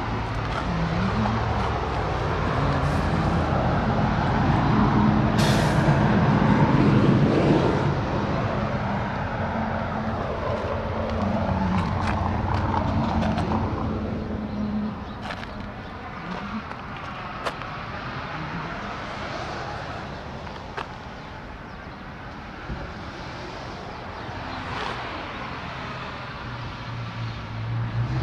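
Motor traffic: vehicle engines running and passing, loudest about six seconds in, with a short hiss about five and a half seconds in.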